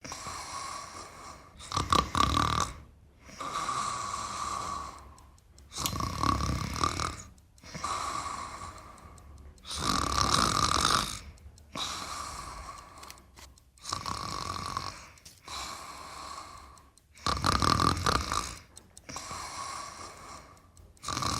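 A person snoring: a loud, rough snore about every four seconds, with a quieter breath carrying a whistle-like tone between snores.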